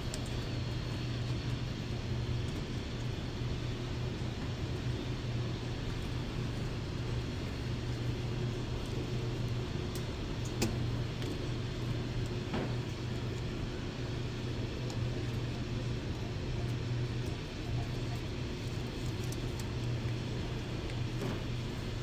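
Maytag MFS55 washer running: a steady low hum over an even hiss, with a few faint clicks.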